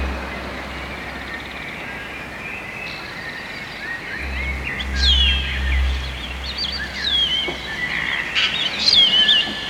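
Birds chirping and whistling in quick descending notes, sparse at first and busier in the second half, over a low bass drone that fades out, comes back in patches and drops away again.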